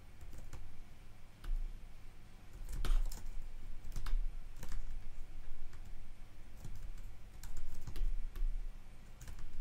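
Computer keyboard keys and mouse buttons clicking, a handful of separate clicks at irregular intervals, as faces are selected and the view is toggled in 3D software.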